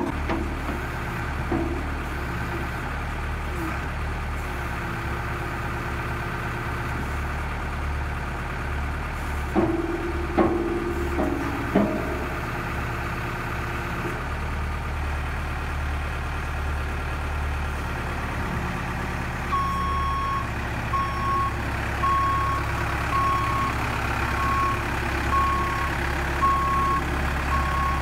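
2001 New Holland LB75B backhoe loader's diesel engine running steadily while the hoe arm is worked, with a few metal knocks around ten to twelve seconds in. About twenty seconds in, the machine's reversing alarm starts beeping evenly, a little faster than once a second, as it backs up.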